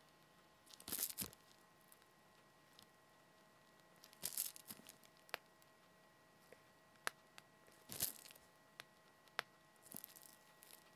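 Plastic piping bag crinkling in four short bursts as it is squeezed to pipe chocolate batter, with a few light clicks and taps in between.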